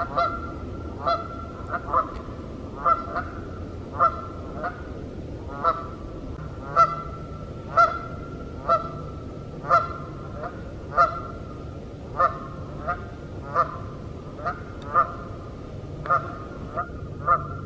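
A pair of Canada geese honking over and over, about three short honks every two seconds.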